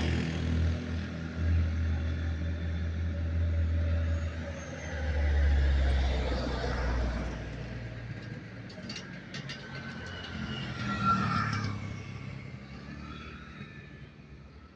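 A motor vehicle's low engine rumble that fades out about halfway through, followed by a fainter swell of passing traffic and a few light clicks before it dies away.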